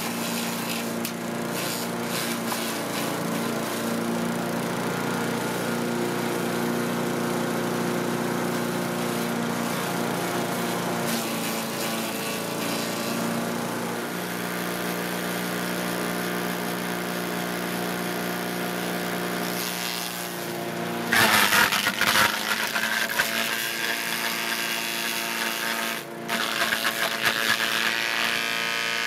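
Cub Cadet CS 3310 gas chipper shredder running steadily at speed. About two-thirds of the way in it grows much louder and harsher for several seconds, then briefly dips and is loud again near the end, as material is fed through and chipped.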